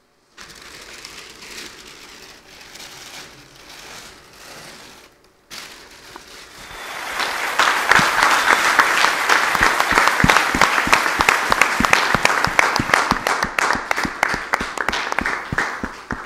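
Paper rustling and tearing as the wrapping is pulled off a covered picture. About six seconds in, audience applause swells and carries on loudly.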